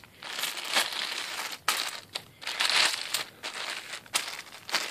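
Plastic zip-lock bags of coins crinkling and rustling in stretches as they are handled and shifted across carpet, with a few sharp clicks.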